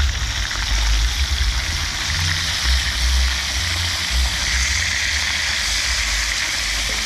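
Porgy pieces frying in hot oil in a skillet, a steady sizzle, over an uneven low rumble.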